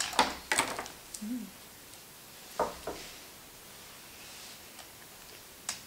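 Mostly quiet, with a few soft, short clicks and rustles as plastic noodles are picked off the game with chopsticks, and a sharp click near the end.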